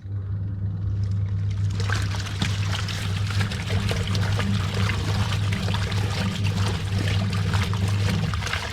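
Washing machine running with water, rushing and splashing in the drum over a steady low hum. It starts abruptly and begins to fade right at the end.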